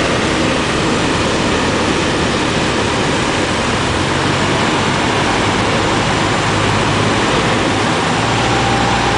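Cessna 150's four-cylinder Continental O-200 engine and propeller running steadily, heard inside the cabin together with the rush of air past the airframe on the landing approach. A thin steady higher tone comes in near the end.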